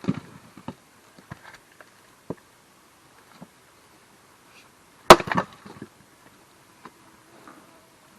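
Splitting axe striking a firewood block once, about five seconds in, with a short crackle of wood tearing apart as the block splits, the hit-and-twist blow. A few light wooden knocks are scattered through the rest.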